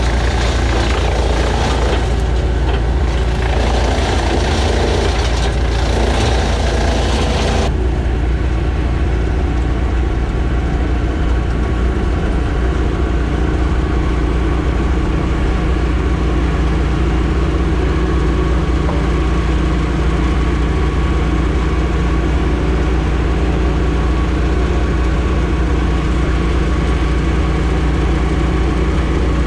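A large engine running steadily at idle. A rougher noisy layer over it stops abruptly about eight seconds in, leaving the plain engine sound.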